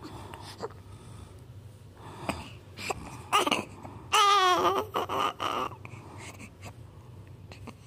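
Newborn baby crying in short cries, the loudest a high, wavering wail about four seconds in.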